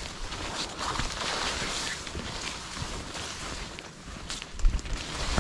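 Footsteps of a hiker walking on a dirt mountain trail, with wind rumbling on the microphone that picks up about four and a half seconds in.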